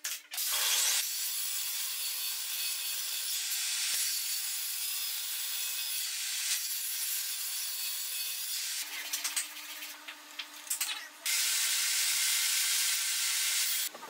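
Portable table saw running and cutting a wooden board, a steady hissing whine. It drops out about nine seconds in, leaving a few knocks of wood being handled, then runs again near the end.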